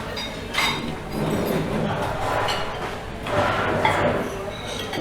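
Café dining room ambience: overlapping background voices with a few sharp clinks of cutlery and crockery.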